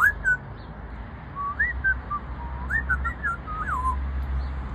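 Pet parrot whistling: a quick rising note, then a short phrase of sliding notes that rise and fall, with a few high chirps mixed in, over a steady low rumble.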